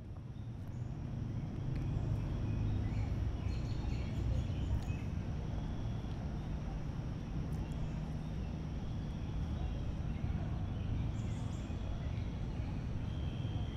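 Outdoor ambience: a steady low rumble with faint bird chirps over it, fading in over the first couple of seconds.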